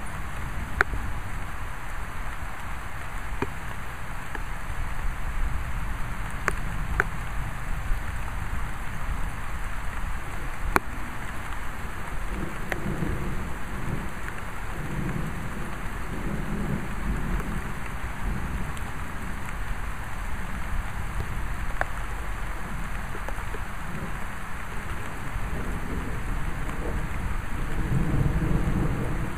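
Steady rain with scattered sharp clicks of individual drops. Low rolling thunder rumbles in about halfway through and again, louder, near the end.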